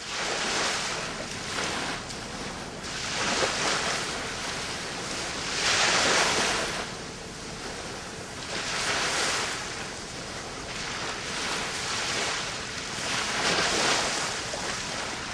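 Waves washing in, a hiss of water that swells and falls every two to three seconds.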